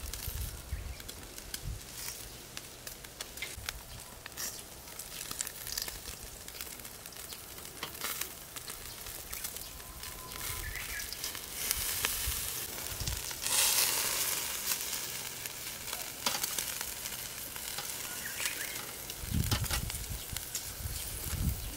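Thin slices of wagyu tri-tip sizzling on a wire-mesh yakiniku grill: a steady crackling hiss with fine spits of fat, swelling to a louder hiss a little past the middle. A low rumble comes in near the end.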